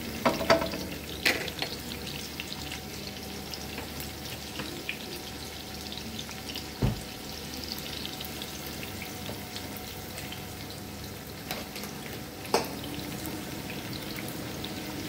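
Sliced onion and garlic sizzling steadily in hot oil in a heavy pot. A few sharp knocks, the first ones near the start as a wooden spatula stirs and taps the pot, others around the middle and near the end.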